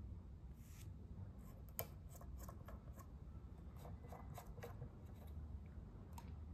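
Faint, irregular small clicks as fingers turn audio amplifier volume knobs, over a low steady hum.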